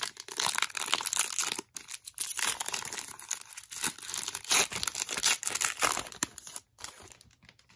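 Foil wrapper of a 2017 Panini Diamond Kings baseball card pack crinkling and tearing as it is ripped open by hand, a run of crackles with a brief pause about two seconds in. It stops near the end.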